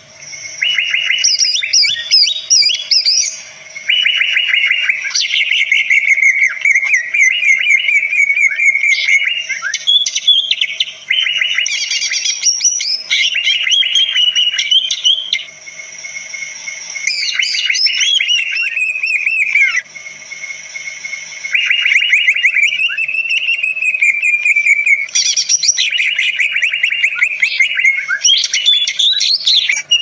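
Green leafbird (cucak ijo) singing a long, varied song of many different calls: rapid chirps, trills and whistled phrases, loud and near-continuous, broken by a few short pauses about four, sixteen and twenty seconds in.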